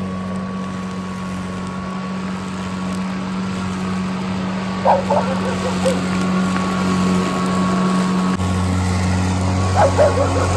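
Greenworks Pro battery-powered electric lawn mower running steadily under its own motor as it is pushed across grass, a steady hum whose low tone grows louder about eight seconds in. Two brief high sounds rise above it, about five seconds in and near the end.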